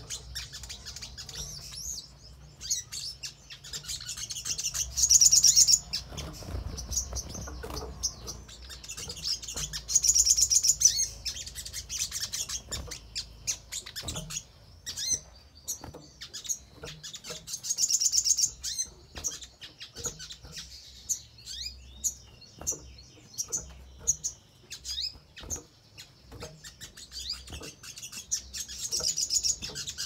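Sunbird (sogon) calling: four loud, high-pitched rapid trills spaced several seconds apart, with short chirps and ticks scattered between them.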